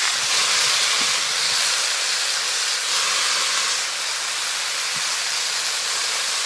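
Leafy greens sizzling in hot oil in a kadai, a loud, steady hiss as the wet leaves fry, while they are stirred with a spatula.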